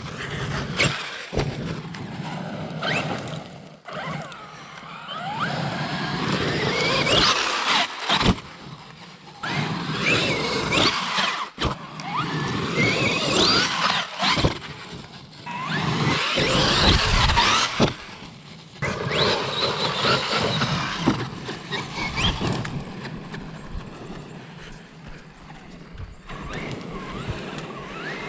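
Traxxas electric RC monster truck driven hard across grass, its motor and gear whine rising and falling in repeated bursts of throttle, with short lulls between runs.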